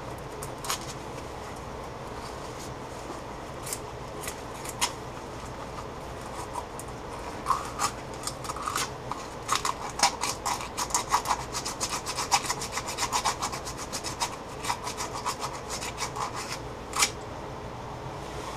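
Sandpaper rubbed by hand over an aluminium sleeve, roughing its surface so CA glue will grip. A few separate scratches come first, then quick back-and-forth rubbing from about seven seconds in until near the end.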